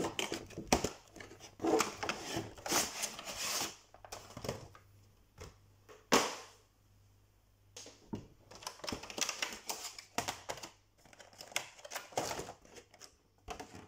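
Cardboard and plastic packaging of a trading-card collection box being opened and handled: irregular crinkling and rustling of the plastic tray and card. There is a sharp knock about six seconds in, followed by a short lull.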